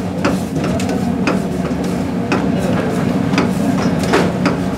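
Metal ladle knocking and scraping against a steel kadhai while a thick gravy is stirred, several irregular clinks over a steady kitchen hum.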